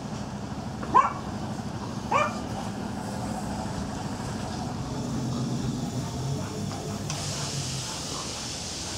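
A small dog barks twice with short yaps, about a second in and again about two seconds in, over a steady low hum. A hiss comes in near the end.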